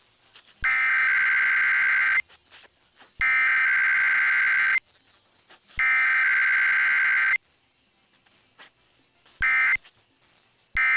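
Emergency Alert System SAME digital data bursts. Three header bursts of about a second and a half each, a second apart, open the test; then the short end-of-message bursts start, two of them near the end. There is no long attention tone between them.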